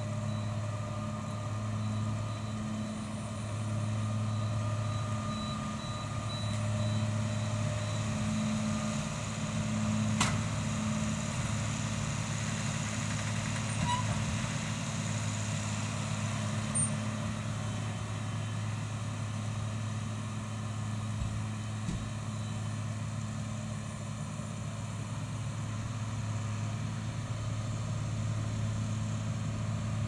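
New Holland tractor's diesel engine running steadily under load as it pulls a Lely round baler through grass swaths, a continuous low drone. One sharp click about ten seconds in.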